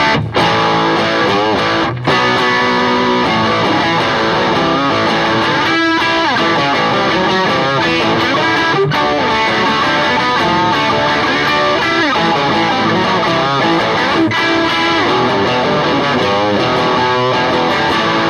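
Gibson Les Paul Standard '60s electric guitar played continuously through an amp with its ordinary Les Paul setting, giving the usual Les Paul tone.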